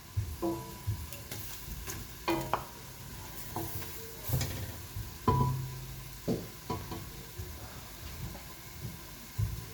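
Calamari sautéing with leeks in butter in a pan, sizzling while it is stirred. The utensil knocks and scrapes against the pan about ten times, some strikes leaving a brief metallic ring.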